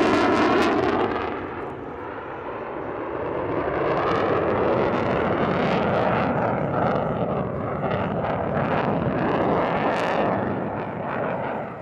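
Turkish Air Force F-16 Block 40 Fighting Falcon's General Electric F110 turbofan roaring in a display pass, with a swirling, phasing sound as it moves past; it eases about two seconds in and builds again from about four seconds.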